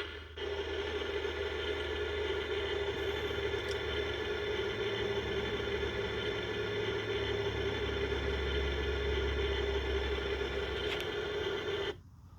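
Electronic engine-hum sound effect from a toy Millennium Falcon's built-in speaker: a steady, low rumbling drone that cuts off abruptly near the end.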